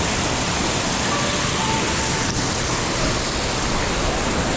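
Steady rush of surf and moving water, an even hiss with no breaks.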